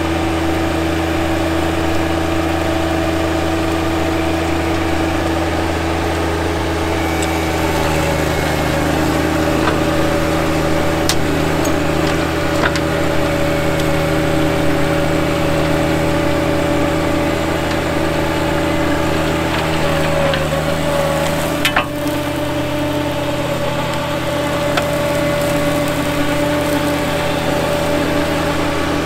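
A John Deere 1025R compact tractor's three-cylinder diesel engine runs steadily under load, driving a PTO flail mower through tall grass. A few sharp clicks cut through, the loudest one about two-thirds of the way in.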